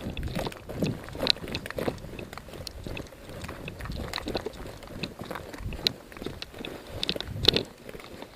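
Footsteps and gear rustling as a player moves, with irregular clicks and knocks and soft low thumps.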